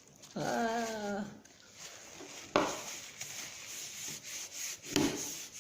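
A short wordless voice sound with a wavering pitch about half a second in, then two sharp knocks, over faint rubbing and scraping as the glue-and-colouring slime mixture is handled.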